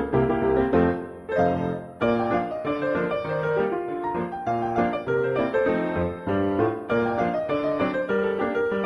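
Piano music: a piano playing a brisk run of separate notes and chords, as silent-film accompaniment.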